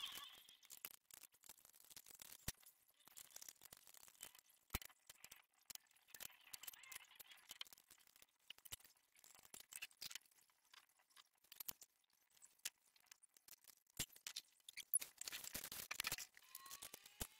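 Faint, scattered metallic clicks and light scraping of hand tools working on a motorcycle engine as it is being stripped, with a short burst of louder rustling near the end.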